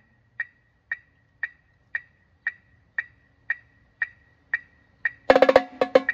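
Sharp clicks on a steady beat, about two a second, keeping time nine times through a rest in a cadence on marching tenor drums (quints). The tenor drums come back in, loud and fast, near the end.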